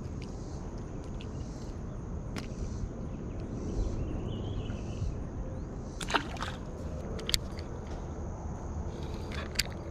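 Steady low outdoor background noise, with a few scattered light clicks and knocks as a small fish is handled and unhooked.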